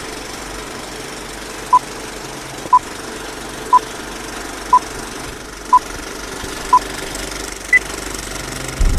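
Six short electronic beeps one second apart at the same pitch, then a seventh beep an octave higher, in the pattern of countdown or time-signal pips, over a steady hiss.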